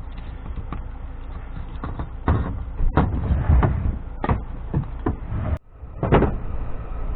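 A run of knocks and clunks as camping stove gear is handled and packed away, thickest from about two seconds in, over a steady low rumble. The sound cuts out briefly a little past halfway, then one more clunk follows.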